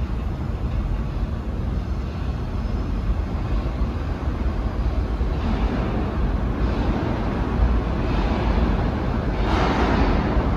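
New York City subway trains rumbling through an underground station: a steady low rumble, with a rushing noise that grows louder about halfway through and again near the end.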